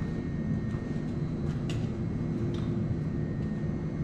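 Steady low rumble of workshop background noise with a faint steady hum, and a few light clicks.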